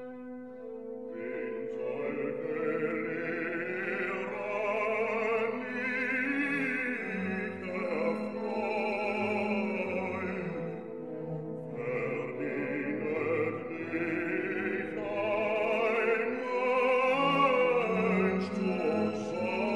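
Opera aria sung with wide vibrato over orchestral accompaniment. The voice enters about a second in over a held orchestral chord.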